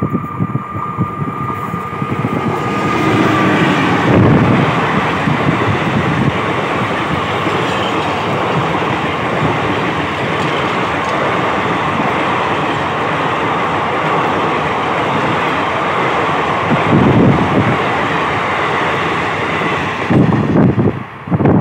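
Electric-hauled passenger train passing close by. A steady high tone is heard for the first few seconds as the locomotive nears. Then there is a long, continuous rush of wheels on rail as the coaches go by, with wind buffeting the microphone near the end.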